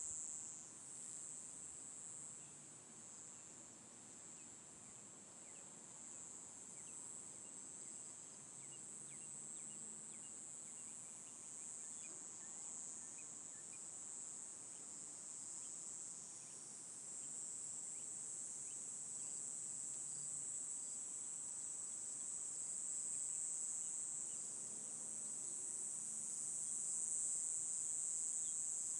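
Insect chorus: a steady, unbroken high-pitched drone, faint overall, growing a little louder in the second half.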